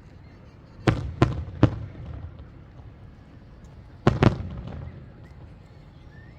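Aerial firework shells bursting: three sharp bangs in quick succession about a second in, then two more close together about four seconds in, each followed by a rolling echo.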